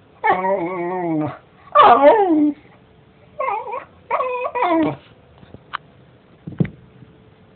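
A dog vocalising in drawn-out, whining calls: a long wavering whine, then one that falls in pitch, then three shorter whines. Two sharp clicks follow near the end.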